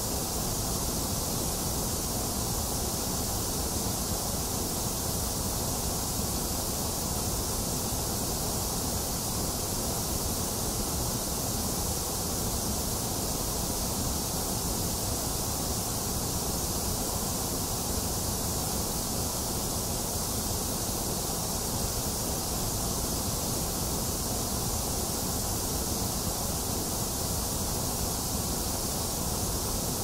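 Steady white noise for soothing a baby: an even, unchanging hiss with no separate drops or events in it.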